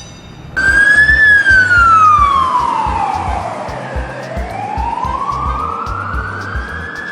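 A siren starts about half a second in with one slow wail: it slides down over about three seconds, then climbs back up. Low, uneven thumps run underneath.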